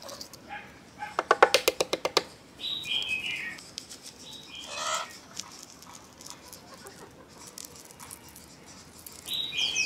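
A quick run of sharp clicks, the loudest sound, as boiled quail eggs are handled and cracked for peeling, with a smaller crackle a few seconds later. A bird's short chirps, stepping down in pitch, come twice in the background.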